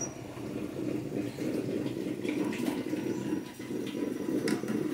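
Bolinhos de chuva frying in a saucepan of oil on low heat, the oil bubbling and sizzling steadily. A few light clicks come as a wire skimmer touches the pan.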